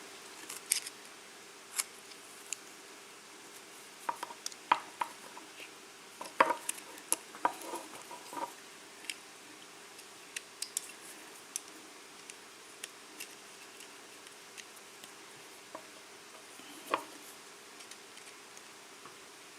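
Irregular small metal clicks and clinks of a Kwikset KIK lock cylinder being taken apart by hand, its parts and retaining clip being worked and handled. The clicks come in a busy cluster from about four to eight seconds in, with one louder click near the end.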